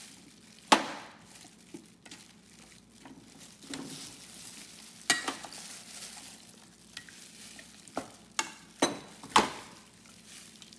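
A spoon stirring chicken pieces through a thick yogurt marinade in a stainless steel mixing bowl: a wet stirring noise, broken by sharp clinks of the spoon against the bowl, once early, once about halfway, and four in quick succession near the end.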